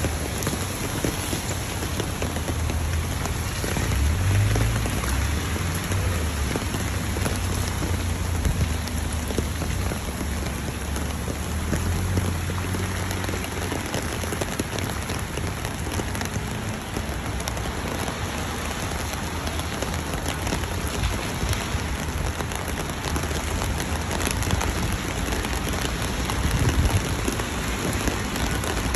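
Steady rain falling, with many small drop ticks and a low rumble underneath.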